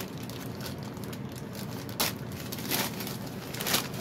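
Plastic Amazon poly mailer bag being pulled open by hand along its tear strip, crinkling with a few sharp rips and rustles, the loudest about halfway through and near the end.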